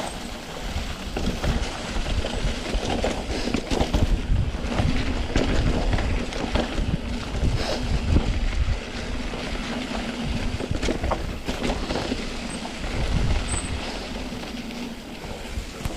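Mountain bike riding down a rough dirt trail: wind buffets the microphone, and the frame and tyres rattle and knock over bumps with a steady low rumble.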